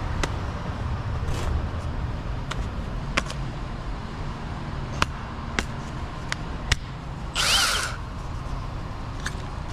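A power tool running with a steady low hum, scattered sharp clicks, and a brief higher whir about seven and a half seconds in.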